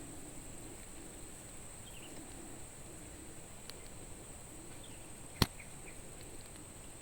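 Steady high-pitched drone of insects with a few faint chirps, broken once by a single sharp click about five seconds in.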